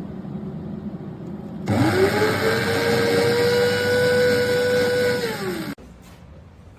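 Electric coffee grinder's motor switched on: it spins up quickly to a steady whine, runs for about four seconds, then stops and winds down.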